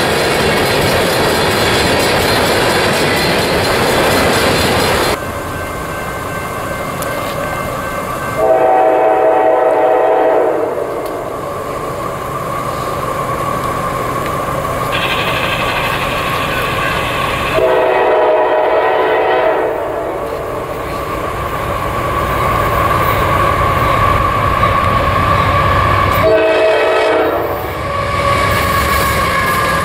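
Freight cars rolling past with steady wheel noise for the first few seconds. Then an approaching diesel freight locomotive sounds its multi-note horn in three long blasts, about eight seconds apart, with a fourth starting at the very end.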